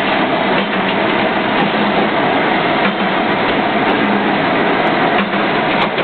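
Natural-gas forging furnace burning: a steady, loud rushing noise, with a low hum that comes and goes.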